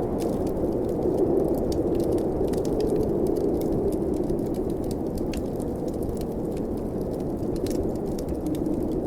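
Blizzard wind blowing steadily as a low rushing noise, with the small sharp pops and crackles of a wood fire scattered throughout.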